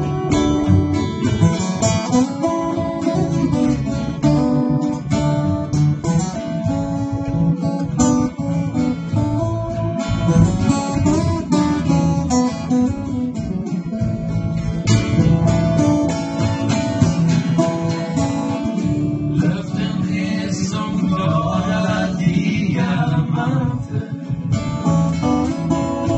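Live acoustic band playing a country-folk song: two acoustic guitars strumming and picking over an upright double bass, with no sung lyrics for most of the passage.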